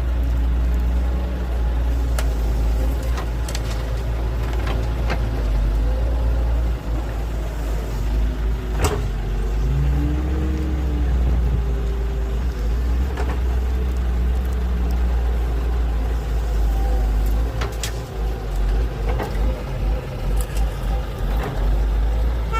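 Diesel engines of an excavator and dump trucks running with a steady low rumble, a few sharp clanks, and a brief rise and fall in engine pitch near the middle.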